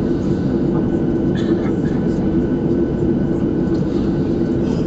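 Steady cabin rumble of a Boeing 737-700 taxiing, its CFM56-7 jet engines at idle, heard from inside the passenger cabin.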